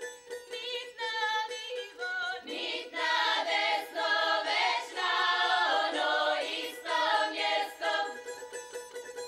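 Folk ensemble with plucked-string accompaniment; about two and a half seconds in, a mixed group of men and women joins in singing together in chorus, and the voices drop out near the end, leaving the strings.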